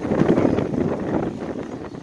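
Strong wind buffeting the microphone: a rough, low rumble in gusts, loudest in the first second and easing near the end.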